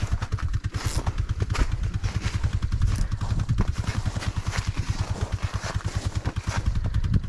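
Ice auger's small engine running steadily with a fast low pulsing, drilling a hole through the lake ice, with light clattering.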